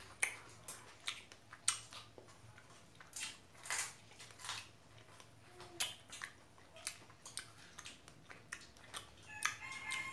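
A person chewing strawberries with the mouth closed: a string of irregular short mouth clicks and smacks.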